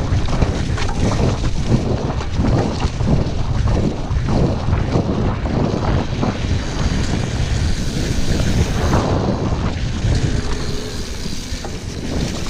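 Wind buffeting the handlebar camera's microphone as a Cube Reaction GTC cross-country mountain bike rolls fast over leaf-covered dirt singletrack, with frequent rattles and knocks from the bike over rough ground. It eases off slightly near the end.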